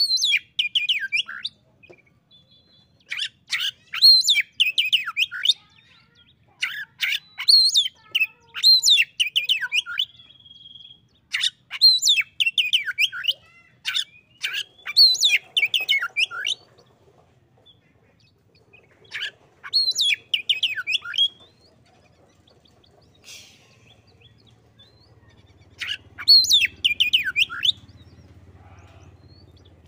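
Oriental magpie-robin singing in bursts: about seven phrases of high whistled notes and quick slurred trills, each a second or two long, with short pauses between.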